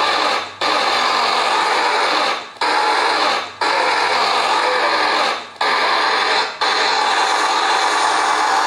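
Loud, steady rushing noise from a septic-tank construction video's soundtrack playing on a TV. It drops out briefly five times, each time fading down and then snapping back.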